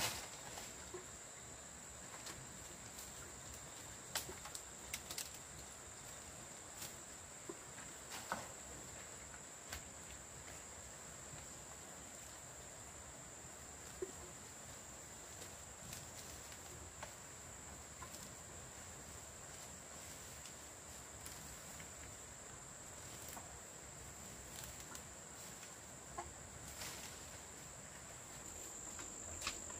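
Chickens clucking softly now and then over a steady high insect drone, with scattered light clicks and rustles.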